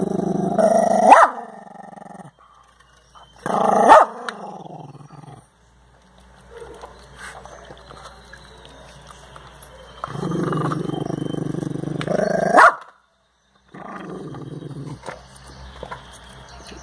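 Small black-and-tan dog growling in long rumbles while it mouths a chunk of ice, three times, each growl ending in a short sharp bark. Quieter clicking from its mouth and the ice fills the gaps.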